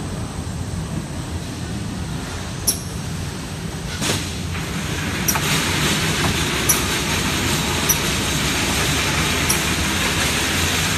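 Automated rearview-mirror assembly machine running: steady factory machinery noise with sharp clicks about every second and a half, and a broad hiss that comes up about four seconds in as a fixture plate lowers onto the mirror housing.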